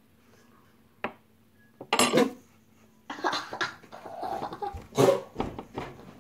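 A boy coughing a few times in short bursts on a mouthful of dry ground cinnamon, the powder catching in his throat, with a metal spoon clattering down onto a wooden table.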